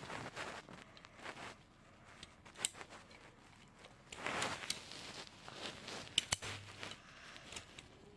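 A stapler being handled: scattered light clicks and rustling, with a few sharp clicks about two and a half seconds in and again near six seconds.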